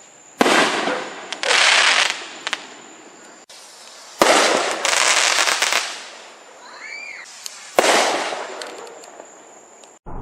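Fireworks going off: about five loud bangs, each trailing off in crackle, with a short whistle that rises and falls about seven seconds in.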